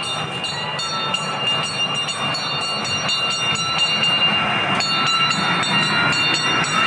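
Small kids' amusement train running along its narrow track. Its wheels click evenly over the rails several times a second, and the sound grows a little louder as it nears.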